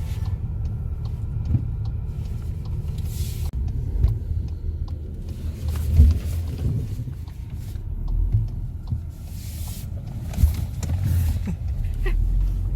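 Steady low rumble like a vehicle in motion, with scattered short knocks and clicks; the loudest knock comes about halfway through.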